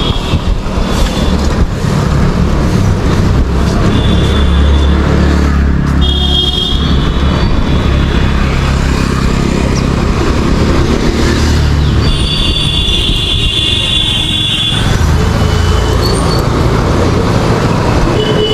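City road traffic heard from a moving bicycle under a steady low rumble, with several high-pitched vehicle horn honks, the longest lasting a few seconds about twelve seconds in.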